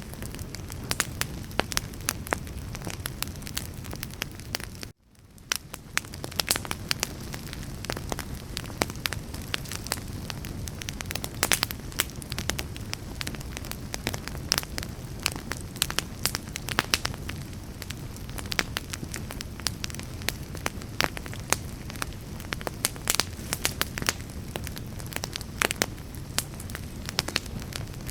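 Campfire burning, with a steady low rumble and many sharp crackles and pops. About five seconds in the sound cuts out to silence for a moment, then fades back in.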